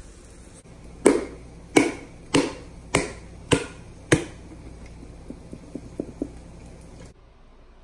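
Palm slapping the bottom of an upside-down plastic barbecue sauce bottle, six sharp smacks about every half second, to shake the sauce out. A few much lighter taps follow.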